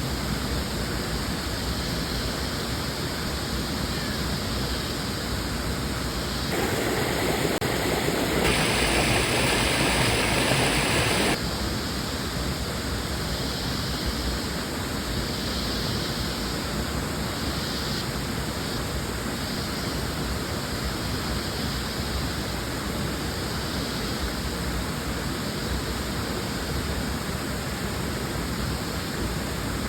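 Waterfall and river water rushing steadily. A louder, brighter stretch of rushing from about seven to eleven seconds in starts and stops abruptly.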